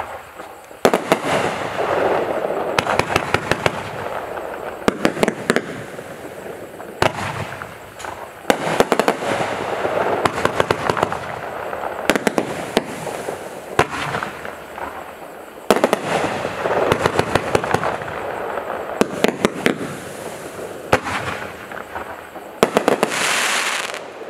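A 42-shot consumer fireworks cake (Shiny Star Sky Painter) firing volley after volley. Shots launch and break into dense crackling pops, in repeated waves with brief lulls between them.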